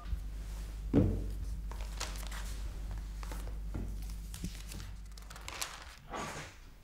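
Desk sounds over a low steady hum: a soft thump about a second in, then faint scratching and rustling of a pen and paper on a notepad.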